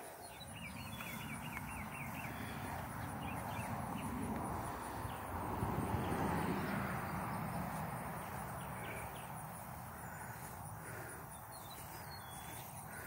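Outdoor ambience of insects chirping in a steady high-pitched pulse, with a short warbling bird call about a second in. A rustling hiss swells towards the middle and then fades.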